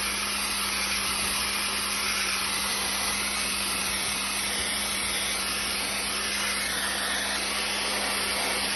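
Dry ice blasting gun firing pellets in a compressed-air stream through a flat nozzle: a loud, steady hiss with a low hum underneath.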